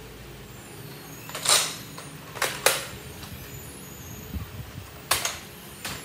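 Sharp plastic clacks and clicks from a Nerf Elite 2.0 blaster being handled during reloading: a loud one about a second and a half in, a quick pair a second later, and two more near the end.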